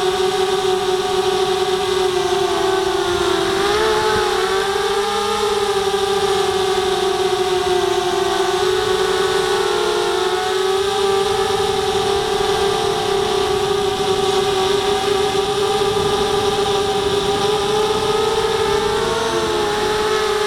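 ZMR250 racing quadcopter's brushless motors and propellers whining, heard from the onboard camera. The pitch rises and falls with the throttle, most clearly a few seconds in, around ten seconds, and near the end.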